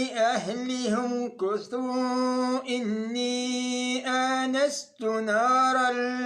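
A man's voice chanting Quran recitation in the melodic tajweed style, holding long ornamented notes. There is a brief pause for breath near the end.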